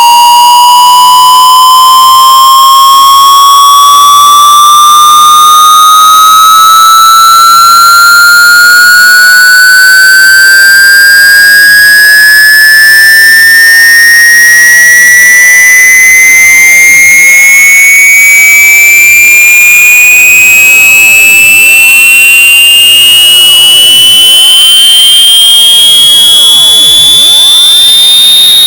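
Electronic test-tone sweep: a single loud, buzzy tone gliding slowly and evenly upward in pitch, from a mid whistle to a high one.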